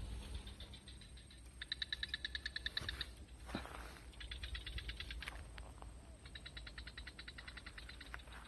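A frog calling in three rapid pulsed trills, each a second or two long. Between the second and third trill, about three and a half seconds in, there is a brief rustle.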